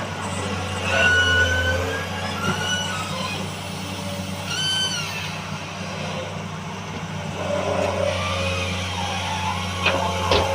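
Excavator's diesel engine running steadily under load, with brief high-pitched whines about a second in and again around the middle, and a couple of sharp knocks near the end.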